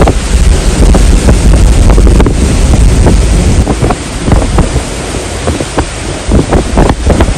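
Typhoon wind gusting hard against the microphone: a deep, rumbling roar with many short knocks and rattles, several a second.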